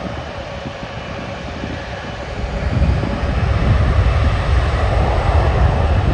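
Jet airliner engines roaring at takeoff power, a steady rushing noise with a faint whine in it. About two and a half seconds in, a deep rumble comes in and the sound grows louder.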